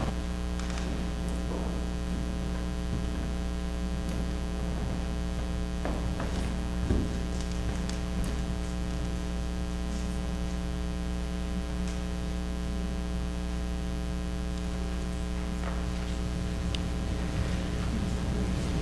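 Steady electrical mains hum, a stack of even buzzing tones with no change in pitch, with a few faint knocks and rustles, one a little louder about seven seconds in.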